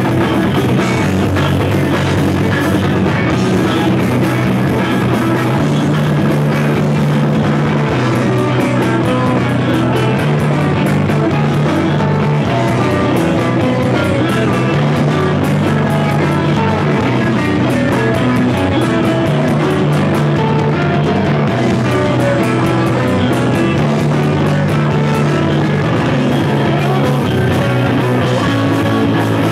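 Rock band playing live: distorted electric guitars, bass guitar and drum kit, loud and steady, with a low bass figure that repeats about every four seconds.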